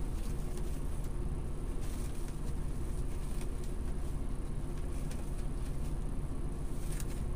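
Steady low background hum, with a few faint rustles of deco mesh and ribbon loops being spread apart and fluffed by hand.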